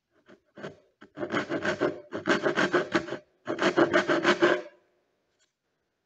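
Steel blade scraped rapidly back and forth across the edge of a wooden board, in three bursts of quick strokes after a couple of single strokes.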